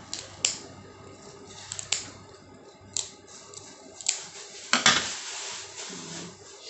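Kitchen scissors snipping and cracking through the cooked shell of a boiled slipper lobster: a string of sharp, separate snips, the loudest and longest crack about five seconds in.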